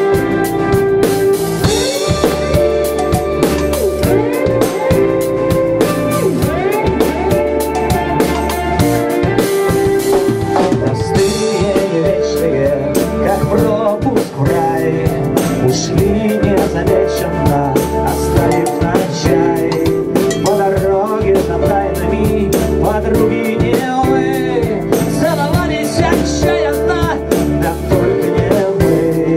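Rock band playing live, loud and steady: a drum kit keeping the beat under electric bass and electric guitar.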